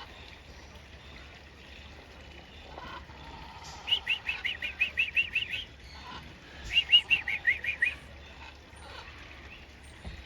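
A bird calling in two quick runs of rapid, repeated high chirps, about six notes a second, the first run about four seconds in and the second just under three seconds later.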